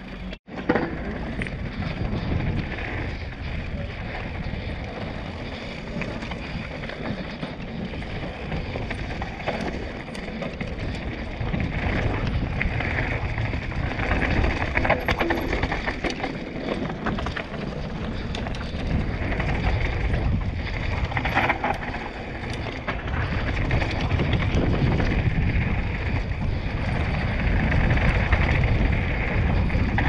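Mountain bike riding fast down a dirt and gravel trail: steady wind rush on the camera microphone over the noise of tyres on loose stones and the bike's rattle.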